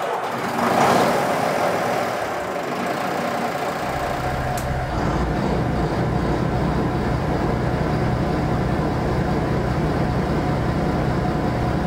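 DAF marine diesel engine starting up and running. About four seconds in, a deep low rumble sets in, and it then runs on steadily.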